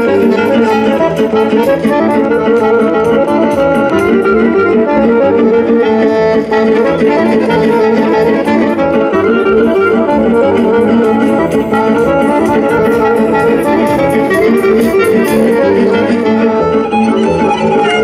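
Loud instrumental music.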